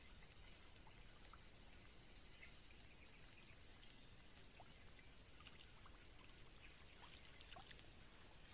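Near silence: outdoor ambience with a faint steady high-pitched tone and a few faint scattered ticks.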